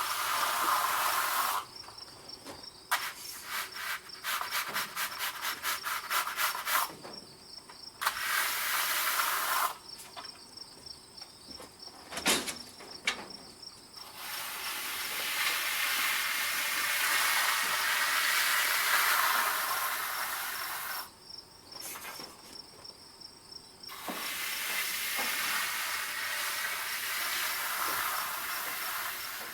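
Even hissing noise in stretches of a few seconds, each starting and stopping abruptly, with crickets chirping in the quieter gaps.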